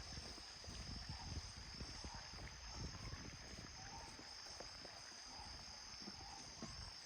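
Faint, steady high-pitched chorus of insects chirring, with a soft low rumble beneath.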